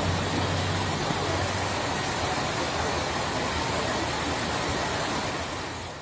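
Steady machinery noise: an engine or motor running with a low hum under a broad hiss. It fades out near the end.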